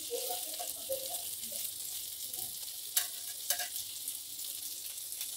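Small whole fish shallow-frying in hot oil in a non-stick pan, sizzling steadily while a spatula turns them over. Two sharp clicks about three seconds in as the spatula knocks the pan.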